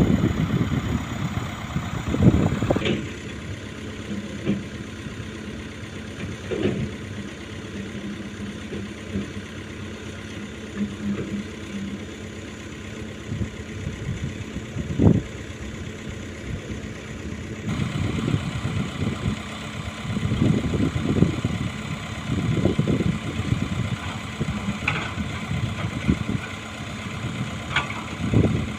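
Skid steer engine running steadily under a machine hum, with scattered sharp knocks and clunks, the loudest about fifteen seconds in, and uneven louder stretches in the second half.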